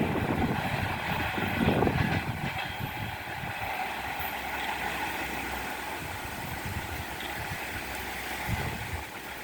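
Passenger train rolling along the rails, with a few wheel knocks about two seconds in, then a steadier rumble that fades as the train draws away.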